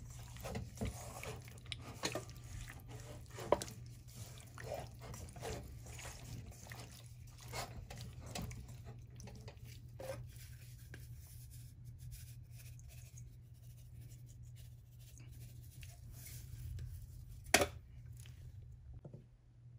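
Gloved hand squishing and turning seasoned raw chicken pieces in a stainless steel pot, making irregular wet squelches and soft knocks. They are busiest in the first half and sparser after. Near the end there is a single sharp knock, the loudest sound, over a low steady hum.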